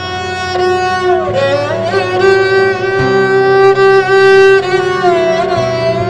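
Instrumental background music: a held, sliding melody line, bending down in pitch and back up about a second in and again near the end, over sustained bass notes.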